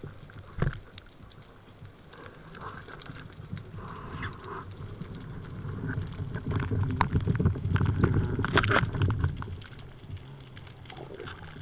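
Underwater water noise, a low rumble that builds in the second half, with scattered sharp clicks and knocks and one louder knock about nine seconds in.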